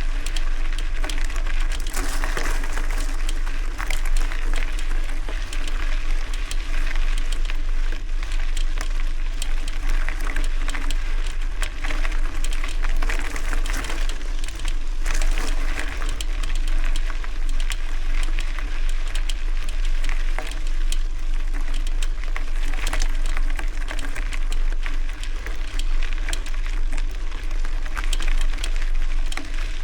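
Gravel bike riding over a gravel road: a steady crunching and rattling of tyres on loose stones, with a low rumble of wind on the microphone.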